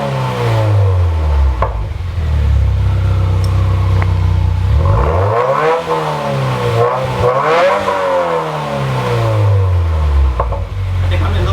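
2018 Subaru WRX's turbocharged 2.0-litre flat-four being revved through a Borla S-Type cat-back exhaust. The revs fall back to idle at the start, climb twice in quick succession around the middle, then drop back to idle near the end.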